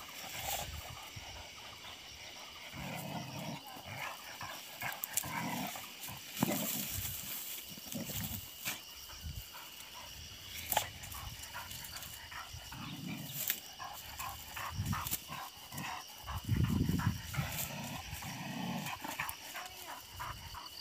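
A dog growling in short, low bouts, repeated several times.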